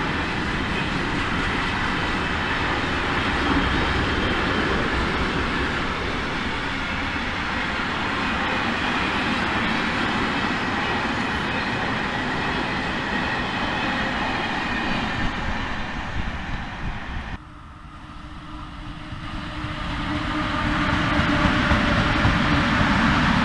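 Freight train container wagons rolling past, a steady noise of steel wheels running on the rails. About two-thirds of the way through it cuts off, and a PKP ET41 electric locomotive hauling loaded coal wagons comes in, growing louder as it draws near and passes.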